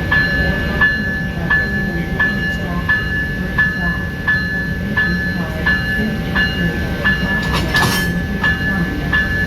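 Locomotive bell ringing steadily, about one stroke every 0.7 seconds, over the low rumble of a locomotive standing at the platform. A short hiss comes near the end.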